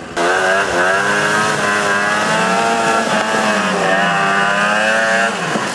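Ski-Doo 500 snowmobile engine held at high revs, cutting in suddenly and running steadily with slight wavers in pitch before dropping away near the end.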